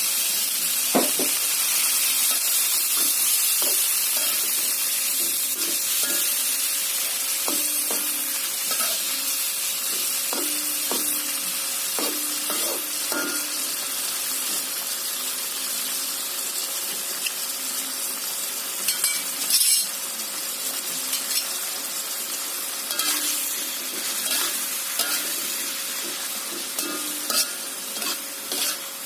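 Clams and tomatoes stir-frying in a pan with a little water: a steady sizzle, with the spatula scraping and knocking against the pan at irregular moments.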